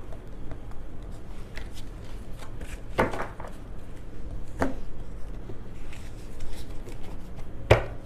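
Tarot cards being handled and shuffled by hand: scattered light taps and flicks of cards, with a sharper tap near the end.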